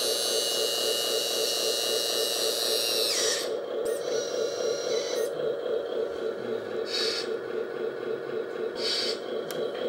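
Hydraulic pump of an RC hook-lift truck and crane model running steadily with a pulsing hum. A higher electric whine falls in pitch and stops about three seconds in, and a few brief scraping sounds follow near the end.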